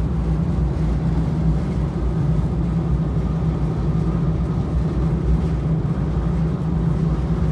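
A passenger boat's engine running steadily at speed, a low hum and rumble, with the wash of the churning wake behind the stern.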